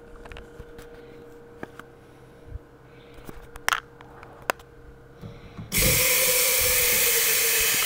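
A few light knocks and clicks from a cooking pot being handled, then near the end a kitchen tap is turned on full and hot water pours steadily into the pot.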